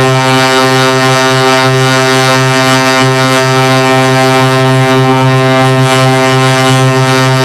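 A steady, low, buzzing drone with many overtones that holds one pitch and level without a break.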